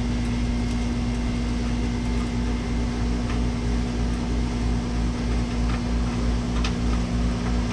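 Steady mechanical hum with a constant low tone over a deep rumble, like an air-conditioning unit or fan running. A few faint clicks sound over it.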